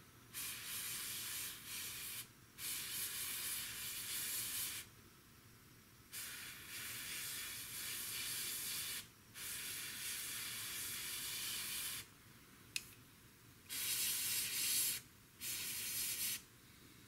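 Airbrush spraying paint in six short bursts of hiss, each one to three seconds long, with quiet gaps between them and a single sharp click in one gap.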